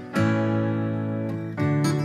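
Background music of a strummed acoustic guitar: one chord struck just after the start rings for over a second, and a new strum comes near the end.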